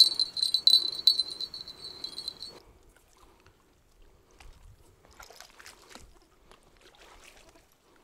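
A cricket trilling, one steady high-pitched tone, which cuts off suddenly after about two and a half seconds. After that come only faint scattered rustles and light clicks of fishing tackle being handled at the rod.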